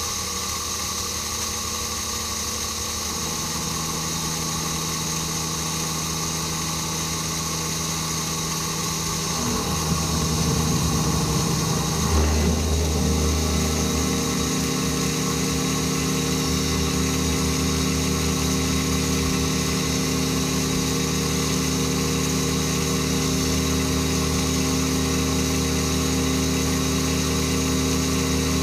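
CNC-converted mini mill running a contour cut in quarter-inch steel plate under flood coolant: a steady machine hum with several held tones. About ten seconds in the pitch shifts over a couple of seconds, then settles slightly louder.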